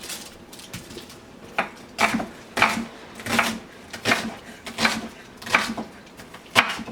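Kitchen knife cutting a red onion down onto a cutting board: a series of about eight sharp chops at a slow, even pace, a little under one a second.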